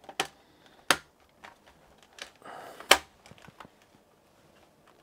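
Plastic clips of a Lenovo G50-70 laptop's bottom cover snapping loose as the panel is pried off: a run of sharp plastic clicks, the two loudest about a second in and near three seconds in, with fainter clicks between.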